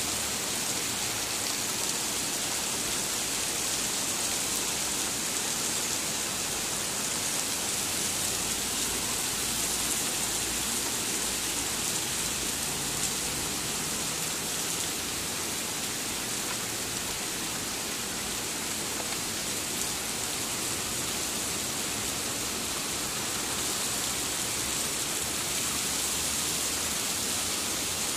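Torrential rain falling steadily on grass and asphalt paths: a continuous, even hiss with no letup.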